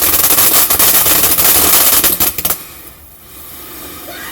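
Fireworks going off in a fast, dense string of sharp crackling bangs, loud, that stops abruptly about two and a half seconds in, leaving a quieter hiss.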